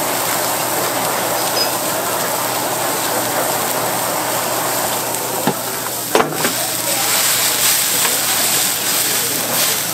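Handheld gas torch hissing steadily as it flames meat skewers on a grill, with the skewers sizzling. Two sharp clicks come a little past halfway.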